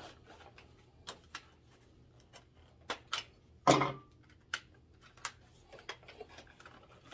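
Plastic clicks and knocks from handling a large plastic toy starship while pulling its rear landing gear out. There is a scattering of short taps and one louder snap about three and a half seconds in.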